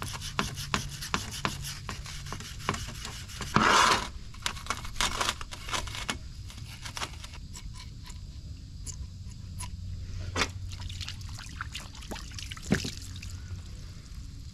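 Gloved hands rubbing and scraping a diaphragm pump's metal housing clean, making a dense run of short scrapes and clicks. A louder burst of scraping noise comes just before four seconds in.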